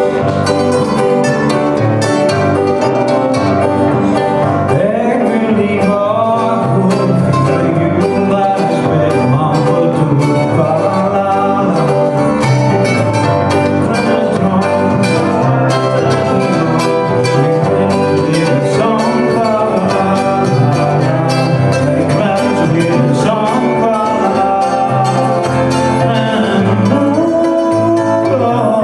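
Live band music: strummed acoustic guitars with keyboard and singing voices, recorded from the audience with poor sound quality.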